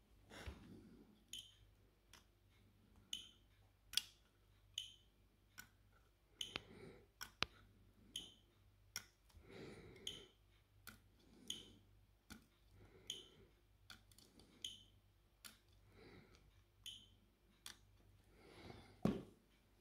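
Portable battery spot welder firing pulse after pulse as its pen electrodes weld nickel strip onto 18650 lithium-ion cells: sharp snapping clicks a little under a second apart, many paired with a short high beep. A dull knock near the end.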